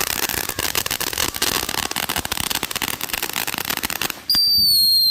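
Consumer firework going off: a dense, rapid crackling hiss for about four seconds, then a sharp pop and a shrill whistle that slowly falls in pitch.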